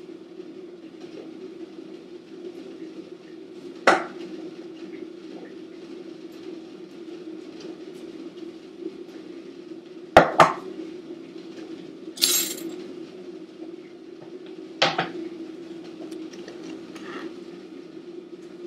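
Clanking of a stainless steel steamer pot, its lid and the dish as the steamed egg is taken out. There is a single clank about four seconds in, a quick double clank about ten seconds in, a short metallic rattle just after, and another clank near fifteen seconds, all over a steady low hum.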